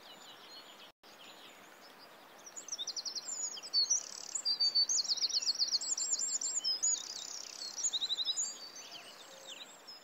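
Small songbirds singing over a steady outdoor hiss: rapid high trills and chirps, busiest in the middle and thinning toward the end.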